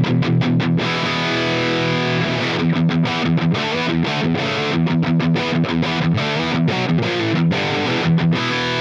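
Heavily distorted electric guitar playing a metal riff through the Line 6 Pod Go's Mesa Boogie Rectifier amp model, with no drive pedal in front. The riff is cut into short notes with quick breaks between them.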